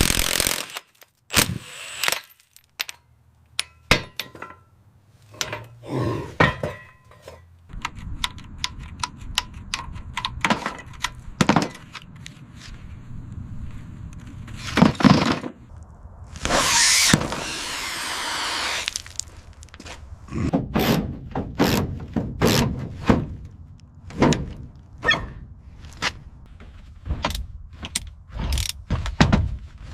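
Hands-on workshop repair sounds: many separate knocks, clunks and clatters of tools and parts being handled, with a short rushing noise about halfway through and a longer one of about three seconds just after it.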